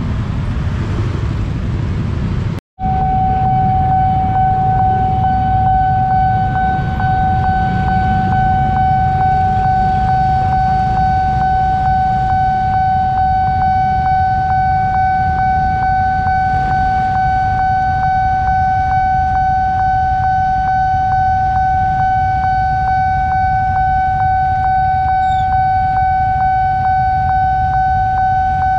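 Railway level-crossing warning alarm sounding one steady, unbroken high tone while the barrier is down. It starts after a brief break about three seconds in, over the low rumble of idling motorcycles and cars queued at the crossing.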